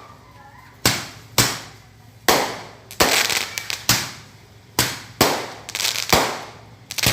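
Small fireworks going off in quick succession: about ten sharp bangs, each with a short fading tail, unevenly spaced, with a rapid crackle of small pops about three seconds in.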